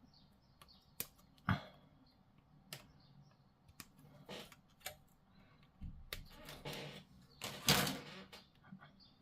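Small plastic model-kit parts clicking and tapping as they are handled and fitted together: a few separate clicks in the first five seconds, then a longer rustle and scrape of parts being handled from about six seconds in, loudest just before eight seconds.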